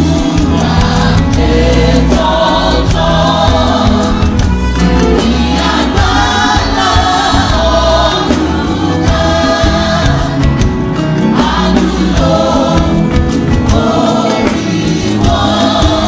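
Church choir singing a gospel hymn in unison over a band's bass and drums, the voices coming in about a second in.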